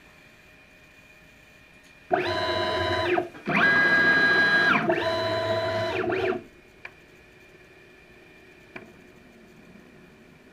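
Stepper motors of a home-built CNC router driving its axes in three quick moves back to back, each a whine that rises in pitch as the axis speeds up, holds, and drops as it slows to a stop. Two faint clicks follow near the end.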